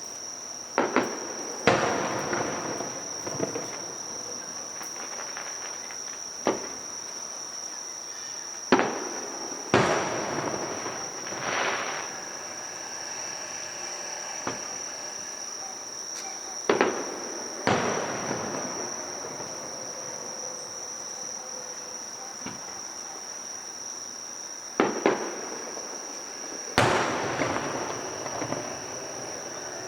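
Aerial fireworks shells bursting overhead, about ten sharp booms at irregular intervals, several trailed by a fading crackle. A steady high-pitched trill of crickets runs underneath.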